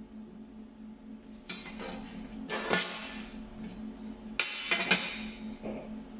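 Metal pieces clinking and scraping together in two short clusters, over a steady low hum.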